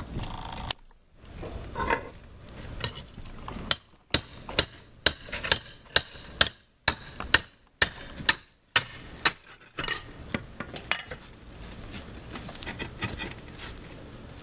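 Hand tools striking and scraping on concrete roof tiles while tiles are pried up: about a dozen sharp metallic strikes at roughly two a second through the middle, with lighter scraping and tapping before and after.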